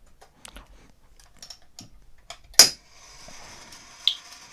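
An Edwards coded pull station being pulled, with scattered small mechanical clicks and then a faint steady whir as its code mechanism runs. About two and a half seconds in comes one sharp pop from the fire-alarm horn, a little chirp or pop. The relay wired between them is too slow to give the horn more than that on each code pulse.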